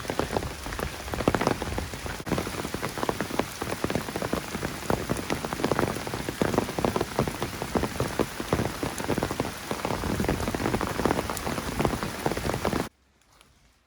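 Rain pattering on a hiking umbrella, a dense steady spatter of drops. It cuts off suddenly near the end.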